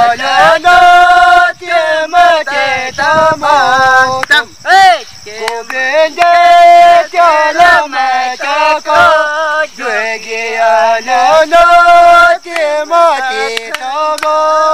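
Men singing a song together, drawing out long held notes in a chant-like melody with short breaks between phrases.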